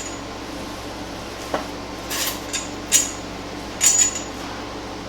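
A few short metallic clinks and knocks from sheet metal and hardware being handled while a truck fender is fitted. They come in a loose run from about a second and a half in, the loudest two near the end. A steady hum runs underneath.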